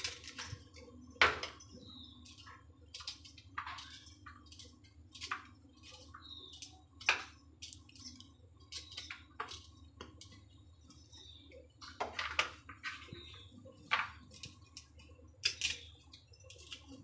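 A knife cutting coconut into small pieces over a plate: irregular clicks and light knocks as the blade bites and the pieces drop onto the plate.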